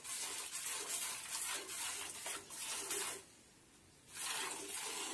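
Buffalo being milked by hand: rhythmic hissing squirts of milk into a pail, about three a second, pausing for most of a second past the middle.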